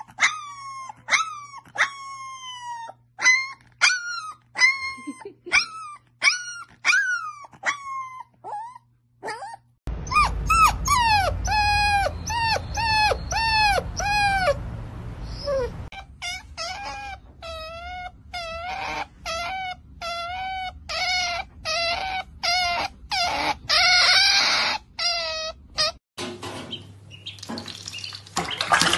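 Puppies giving short, high howling cries over and over, each falling in pitch, about one or two a second.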